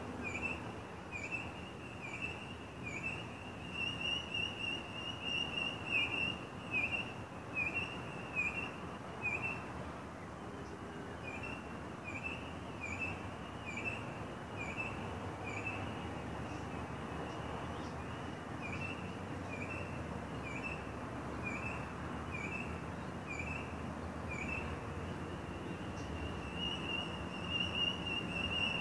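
A bird calling outdoors at dusk: a short, high whistled note repeated about twice a second in long runs, with a held high whistle between some runs, over a steady background of outdoor noise.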